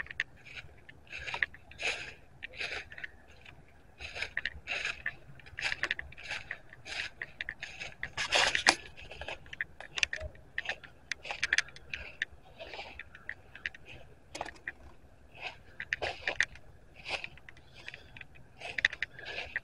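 Footsteps walking through a thick layer of dry fallen leaves, a rustle with each step at about two steps a second, with one louder rustle about eight seconds in.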